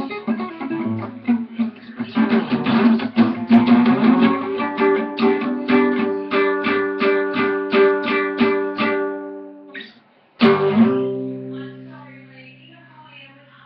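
Acoustic guitar played with a steady run of repeated picked notes over ringing strings. After a short break, one strummed chord comes about ten seconds in and is left to ring and fade.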